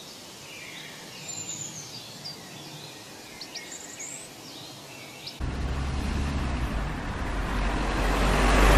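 Birds chirping over a quiet outdoor background. About five seconds in, a sudden switch to louder street noise with a low rumble that swells toward the end: a motor vehicle drawing close.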